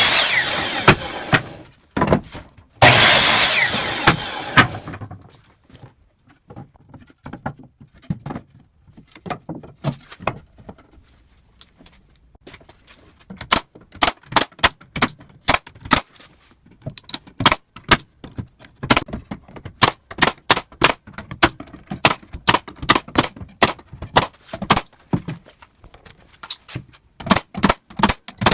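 A power tool runs in two short bursts, each starting abruptly and dying away over a couple of seconds. After a quieter stretch comes a long run of sharp, irregular knocks and clicks, several a second, like hand work with tools.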